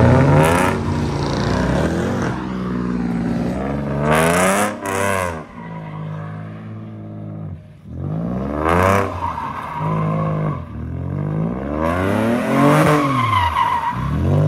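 A Ford Mustang's engine revving hard, rising and falling again and again, as the car slides around in a donut, with the rear tires squealing in bursts about four, nine and twelve seconds in.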